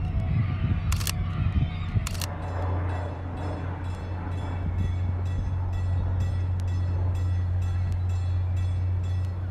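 Steady low engine hum, with two sharp knocks in the first two seconds and then a faint, even ticking of about three a second.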